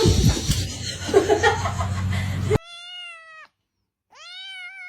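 A domestic cat meowing twice: two drawn-out meows, each rising then falling slightly in pitch, with a short silence between them. They follow a couple of seconds of loud, indistinct noise.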